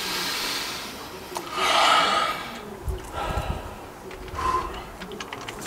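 A man taking deep, noisy breaths in and out. There are about four breaths; the loudest comes about two seconds in and the later ones are softer.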